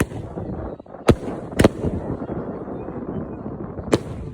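Fireworks going off: four sharp bangs, one at the start, two close together a little after a second in, and one near the end, over a continuous low rumble of more distant bursts.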